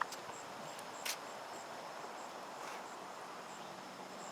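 Quiet outdoor ambience: a steady hiss with short, high insect chirps repeating every half second or so, and a sharp click about a second in.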